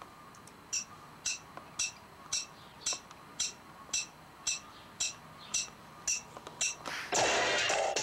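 A song's percussion intro: a sharp, high tick struck evenly about twice a second, a dozen times, before the full music comes in loudly near the end.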